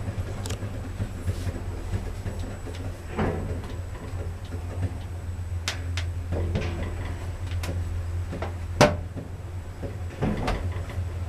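Lift running: a steady low hum from the car and its machinery, with scattered clicks and knocks and one sharp clack about nine seconds in.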